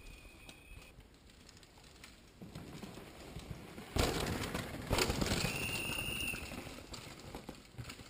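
Downhill mountain bike passing close on a dirt trail: tyres crunching and skidding on dirt, with two sharp knocks about a second apart around four and five seconds in, then fading away. A short steady high whistle-like tone sounds twice, near the start and about halfway through.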